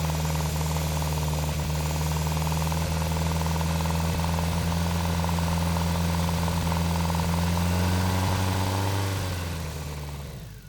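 BMW K1100 RS motorcycle's inline four-cylinder engine running steadily under way. About eight seconds in its note drops as the revs fall, and the sound fades away near the end.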